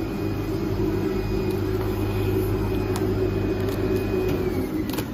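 IECHO PK0705 Plus flatbed cutting machine running while it cuts 5 mm corrugated carton, a steady mechanical hum. Near the end the hum drops away with a short falling whine, and there are a couple of sharp clicks.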